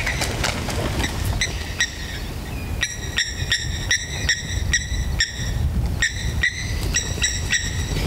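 Repeated short, high-pitched chirping animal calls, two or three a second, over a steady low rumble.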